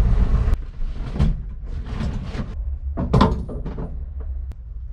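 Land Rover's engine running, heard from inside the cab, cut off abruptly about half a second in. It gives way to a low hum with scattered knocks and clunks, door-like, the loudest about three seconds in.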